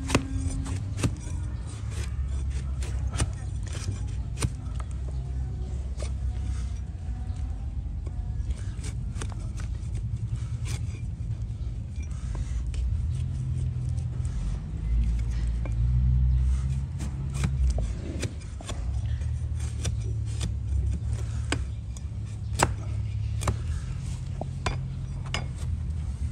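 Large flat hoof knife paring an overgrown donkey hoof on a wooden stand: many sharp crunches and scrapes as the blade slices through the horn, over a steady low rumble.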